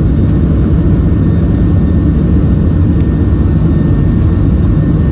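Cabin noise of a Boeing 737-700 with its CFM56-7B turbofans at takeoff thrust: a loud, steady roar with most of its weight low down.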